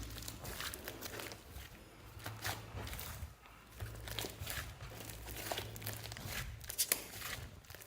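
Slime being squeezed and stretched by hand, giving irregular sticky clicks and crackles over a low hum.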